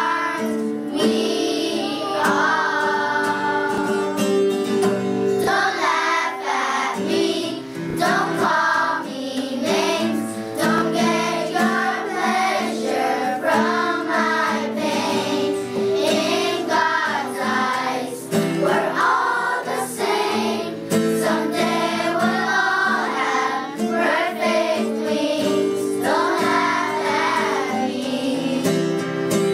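A group of children singing together with a woman, accompanied by an acoustic guitar.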